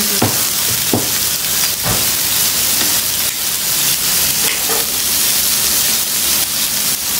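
Steak sizzling on a hot iron sizzle plate: a steady, loud hiss, with a few light clicks in the first two seconds.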